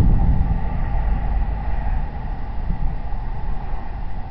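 Low rumble from a meteor's sonic boom, fading over a few seconds, picked up by a security camera's built-in microphone.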